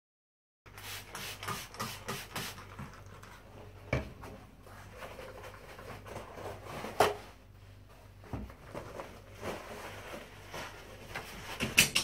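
Rubber-gloved hands scrubbing a ceramic washbasin and wiping a mirror with a cloth: uneven rubbing and scraping with several sharp knocks, the loudest about seven seconds in and just before the end, over a faint steady hum.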